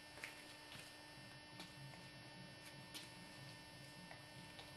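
Near silence: a faint steady electrical hum, with a few faint ticks.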